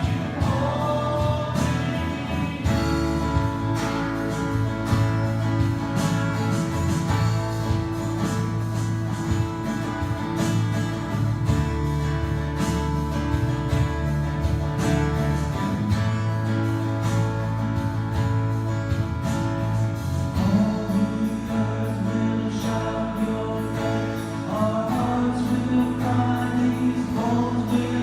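Congregational worship music: singing with instrumental accompaniment, a steady bass and held chords.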